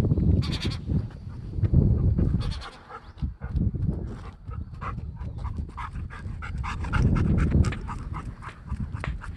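Seagulls calling a few times in the first three seconds over a low rumble, with a busy run of quick clicks and scuffs after that.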